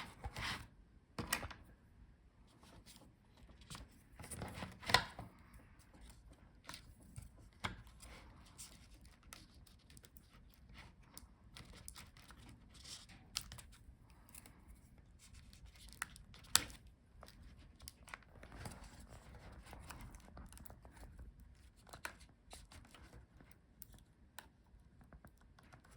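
Faint scattered clicks and scratchy peeling as adhesive tape is pulled off the laptop's LCD video-cable connector and the panel is handled.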